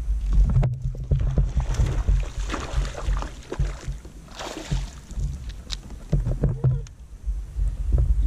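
Water splashing and churning against the side of a kayak, in a couple of spells, over a steady low rumble.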